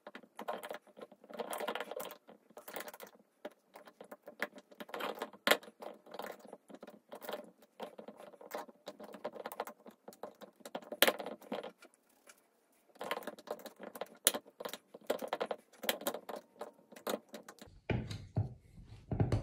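Irregular jangling and clicking of small hard objects being handled, a rapid rattle that pauses briefly twice, with a few duller knocks near the end.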